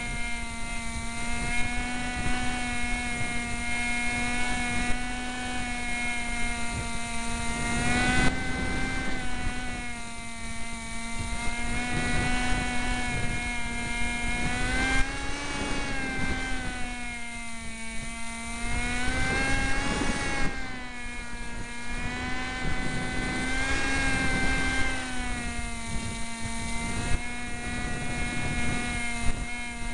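Cox Sky Cruiser model plane's motor and propeller running near full power, heard from on board as a steady whine whose pitch swells up and back a few times, over a low rumble of wind buffeting the microphone.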